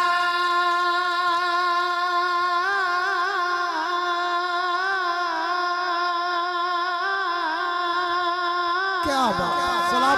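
Male voice singing a Punjabi naat, holding one long note for most of the stretch with a slight waver a few seconds in; about nine seconds in the pitch begins sliding and bending as a new phrase starts.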